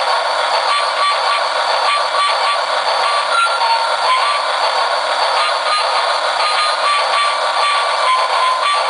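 Battery-operated toy Christmas train set playing a simple electronic Christmas melody through its small, tinny speaker. Under the tune is a steady hiss with soft, regular ticks, a few a second.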